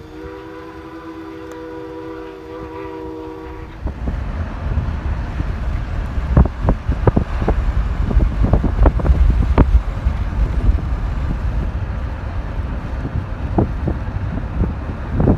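Steam locomotive whistle of ex-CN 89 blowing one long chord that cuts off about four seconds in. Then heavy wind buffets the microphone: a loud low rumble with irregular sharp pops.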